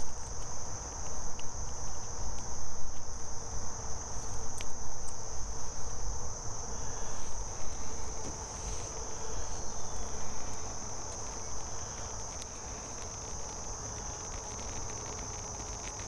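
A steady, high-pitched insect chorus trilling without pause, over an uneven low rumble that settles down after about ten seconds, with a few faint clicks.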